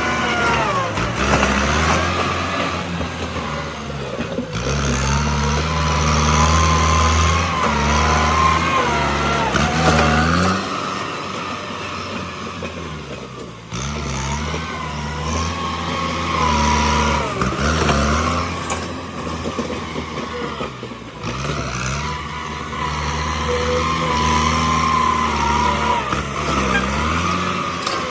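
Bulldozer's diesel engine working under load, its pitch rising and falling in three long pushes with dips in between, and a wavering high whine over it.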